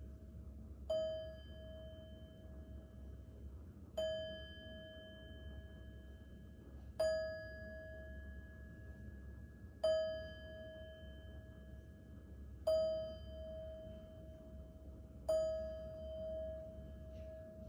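Small metal singing bowl held on the palm and struck with a mallet six times, about every three seconds. Each strike rings a clear tone with higher overtones and fades slowly.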